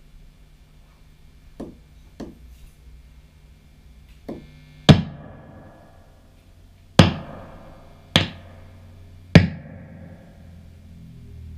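Marshall DSL40C valve combo amp humming faintly through its speaker, broken by about seven sharp cracks with short ringing tails, three small and then four loud ones spaced a second or two apart. The cracks are the sign of an intermittent contact in the broken cable that links the input-jack board to the amp's main board.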